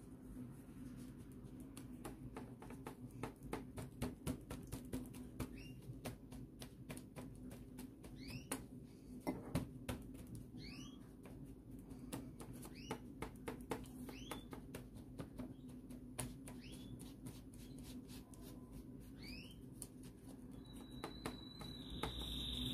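Gloved fingers pressing and patting a buttered biscuit-crumb base into a fluted metal tart pan: faint, irregular soft taps and clicks. About eight short rising squeaks come and go, and a steady high tone sounds near the end, over a low steady hum.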